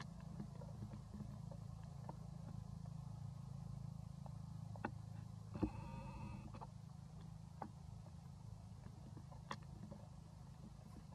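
A baby macaque gives one brief cry about six seconds in, over a steady low rumble and a few scattered small clicks.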